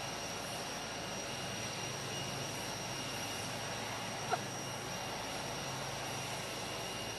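Steady jet aircraft noise from the parked Air Force One (Boeing VC-25A, a 747): an even rushing hiss with a constant high turbine whine. About four seconds in there is one brief rising squeak.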